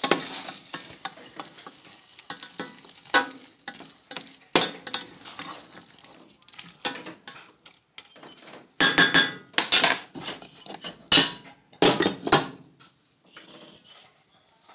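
Spaghetti in Alfredo sauce being stirred in a stainless steel pot, the utensil scraping and clinking against the pot over the faint sizzle of the sauce cooking. The knocks come in a louder run from about nine to twelve seconds in.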